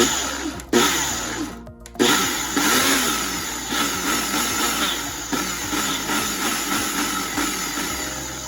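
Ninja personal blender pulsing twice in short bursts, then running for about six seconds as it grinds a dry almond-flour, butter and cacao mixture into crumbs. Background music plays underneath.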